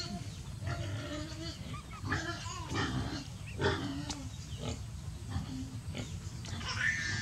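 Baby macaque's short grunting and squeaking calls, several in a row, over a low steady rumble.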